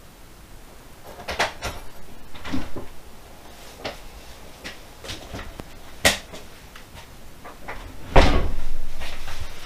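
Scattered knocks and clicks, with a sharp click about six seconds in and a louder thump with a low rumble a little after eight seconds.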